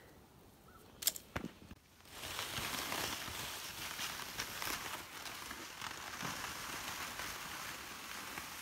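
A few sharp clicks about a second in, then steady crackling and hissing of snow under crunching footsteps and a loaded plastic pull sled sliding over it.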